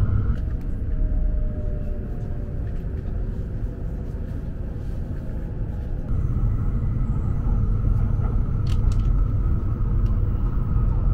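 Joetsu Shinkansen train running, heard inside the passenger cabin: a steady low rumble that grows louder about six seconds in, where a faint steady hum joins it.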